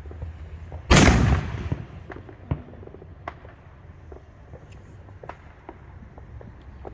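Neighbourhood fireworks going off: one loud bang about a second in that trails off, followed by scattered, fainter pops and cracks over a low background rumble.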